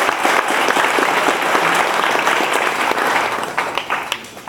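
Audience applauding, a dense patter of clapping that fades out near the end.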